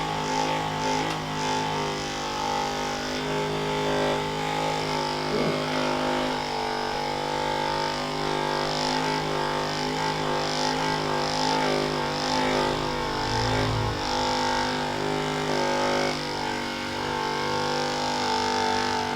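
Handheld electric massager's motor humming in a steady drone while it is worked into the muscles of the hip.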